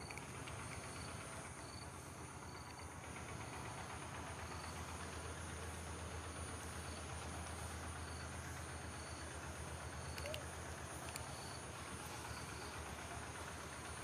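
Outdoor ambience: a steady high insect drone with short high chirps repeating every second or so, over a low steady rumble.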